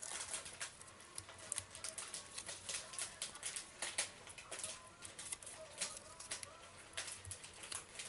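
Fingernails picking at a small cardstock piece to peel off its adhesive backing: a run of quick, irregular light crackles and clicks.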